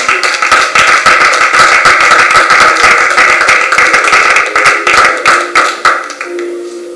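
Hand clapping from a group of people, fast and dense, over soft sustained background music; the clapping stops about six seconds in and the music carries on.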